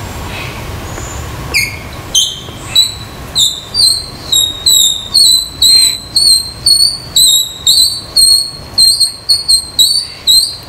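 A loud series of sharp, squeaky calls, about two a second: the first few climb in pitch and the rest hold steady at one high note.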